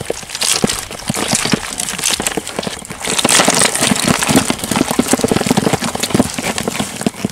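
Fish and crabs being handled out of a collapsible lú fish trap: a dense, irregular clatter of knocks and rattles, busiest about three to four and a half seconds in.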